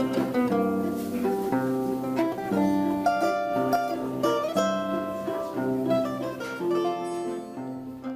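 Music played on a plucked string instrument: a melody of picked notes over chords, fading out at the very end.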